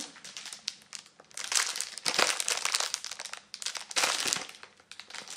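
Crinkly gift packaging being handled, rustling and crackling in several short, irregular spells.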